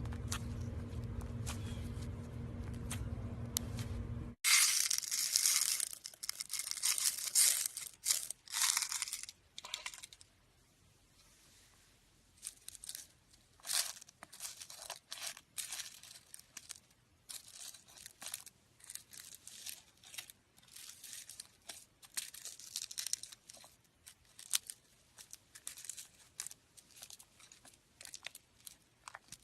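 Slime being squeezed and worked by hand: dense crackling and popping, loud for several seconds, then softer and more scattered. Before it, for about the first four seconds, a steady low hum that cuts off suddenly.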